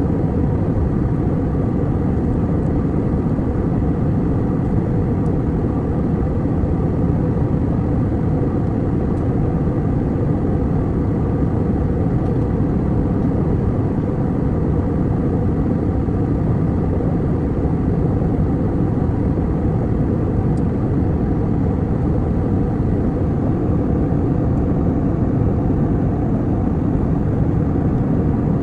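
Steady low drone of airliner cabin noise in flight, engines and airflow blending into an even rumble that does not change.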